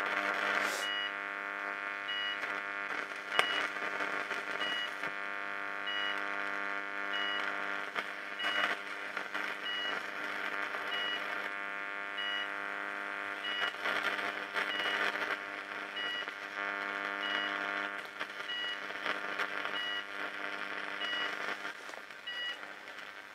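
High-voltage arcing through a burning cooker socket fed about 5000 volts from two microwave oven transformers in series: a steady electrical hum with crackling and snapping that comes and goes. A short high beep repeats at an even pace throughout.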